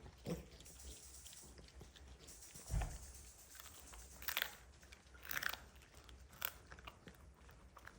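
A dog chewing a dried silkie chicken foot treat, with scattered sharp crunches about a second apart as it bites through the bone.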